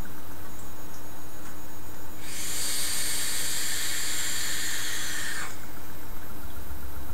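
Breathy hiss of a vape hit, starting about two seconds in and lasting about three seconds before cutting off.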